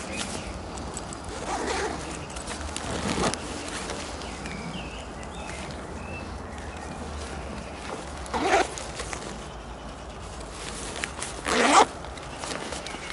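Zips on a KTM Racing backpack being pulled open and shut: four quick zip runs, the two in the second half, the last one the loudest.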